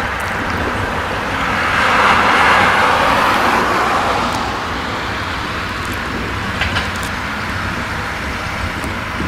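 Farm diesel engines running steadily, from the telehandler and tractor working at the bale trailer. A passing vehicle's tyre noise swells and fades about two to four seconds in.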